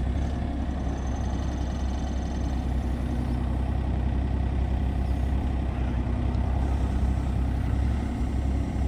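2022 John Deere 35G mini excavator's 23 hp diesel engine running steadily while the hydraulic boom and arm lift and curl the bucket.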